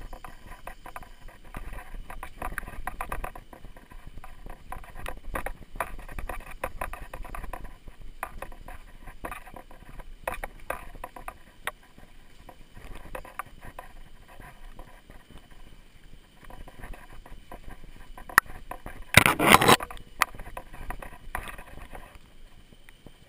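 Mountain unicycle rolling along a leaf-strewn dirt trail: tyre crunching over dirt and leaves with frequent clicks and crackles. A louder burst of noise lasting under a second about nineteen seconds in.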